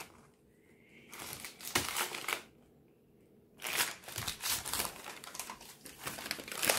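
A crumpled paper advertising flyer crinkling and rustling as a baby grabs and shakes it. There are short bursts of crinkling about a second in, a quiet pause near the middle, then steady crinkling from about four seconds on.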